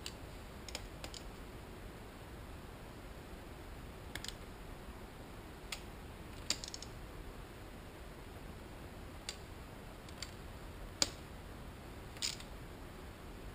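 Scattered light metallic clicks of a small hand tool against parts in the open cylinder head of a Suzuki GSX-R750 engine, about ten at irregular intervals, over a steady low hiss.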